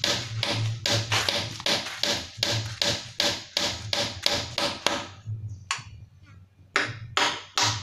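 Hammer blows on a wooden door frame, quick strikes at about four a second. They pause about five seconds in, with one lone blow, then start again near the end.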